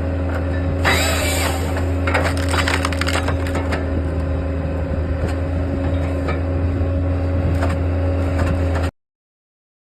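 Hahn HFP 160 skid-steer firewood processor at work: a steady engine and hydraulic drone with wood cracking and splintering as a log is forced through its 6-way wedge, sharpest about a second in and again between two and four seconds in. The sound cuts off suddenly near the end.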